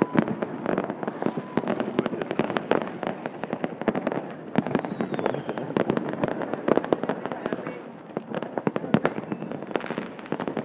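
New Year fireworks going off in many places at once: a dense, unbroken crackle of pops and bangs, several a second, with no single blast standing out. A faint falling whistle comes through about four seconds in.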